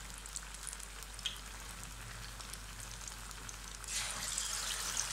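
Batter-coated rohu fish pieces deep-frying in hot mustard oil: a steady sizzle with scattered crackles. About four seconds in, the sizzle suddenly gets louder as another battered piece goes into the oil.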